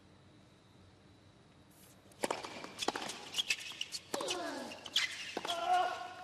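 Tennis point on a hard court: after a couple of quiet seconds, sharp racket strikes and ball bounces come every half second or so, along with the quick squeaks of tennis shoes sliding on the court surface.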